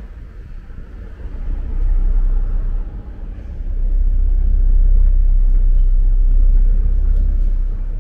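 A deep, low rumble that swells twice: briefly about two seconds in, then for several seconds from the middle before easing off near the end.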